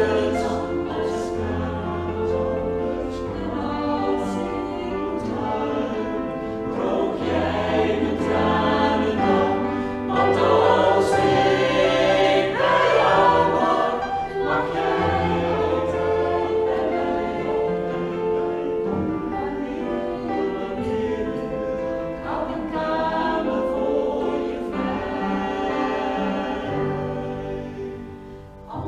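A mixed vocal group of eight men and women singing together in harmony, with sustained low bass notes under the upper voices. The singing softens near the end.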